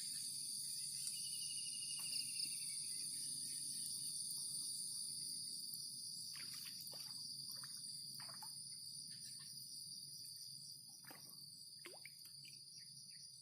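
Insects, crickets or similar, chirring steadily in two high-pitched tones, with a short pulsed trill in the first couple of seconds and a few faint ticks.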